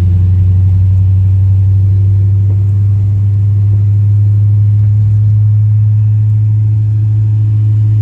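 Car driving at a steady speed: a loud, steady low engine and road drone that holds even throughout.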